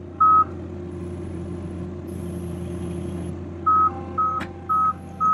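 Avant 528 compact loader's engine running steadily, with its high electronic warning beeper sounding once near the start, then four quick beeps about two a second near the end, typical of a reversing alarm.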